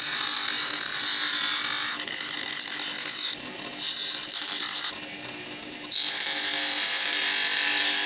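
Bench grinder running with its wheel grinding the white plastic housing of a washing machine timer: a steady motor hum under a loud, hissing grind. The grinding noise falls away twice around the middle, then comes back strongly.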